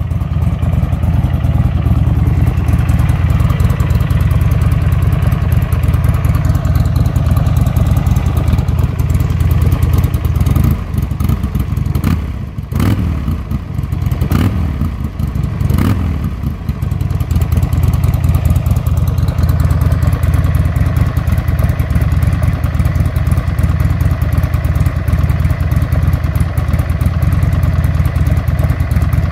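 Buell Firebolt XB12R's air-cooled V-twin running steadily at idle, with a few brief knocks about halfway through.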